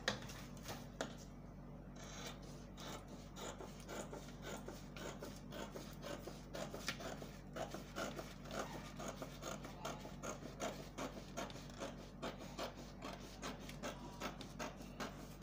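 Pencil scratching on pattern paper in repeated short strokes, marking measurements and drawing lines.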